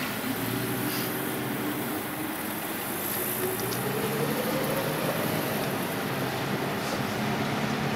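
Four-wheel-drive vehicle's engine running as it drives slowly along a rough dirt road, heard from inside the cab; its pitch rises about four seconds in as the vehicle speeds up.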